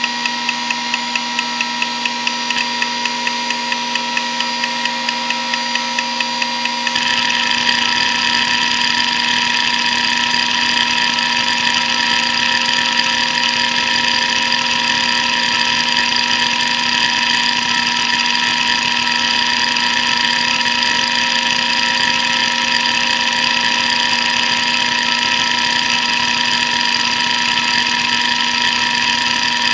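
Hitachi DK522C-10 hard drive running a seek benchmark, its spindle whine steady throughout. The heads first click in a regular beat of about four to five a second, and about seven seconds in the sound turns into a fast, continuous rattle of random seeks.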